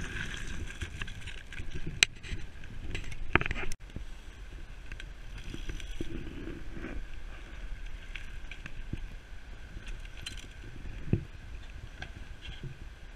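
Mountain bike riding on a loose gravel trail: tyres crunching and the bike rattling, with sharp clicks about two and three and a half seconds in. The sound cuts off abruptly about four seconds in, leaving a quieter steady outdoor hiss with a single soft knock near the end.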